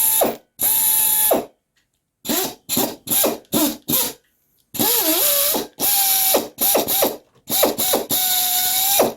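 Pneumatic air drill running free on compressed air, triggered in about a dozen short bursts. Each burst is a hiss of exhaust air with a high whine that rises as the drill spins up and drops as it slows, like a dentist's drill; the tool works.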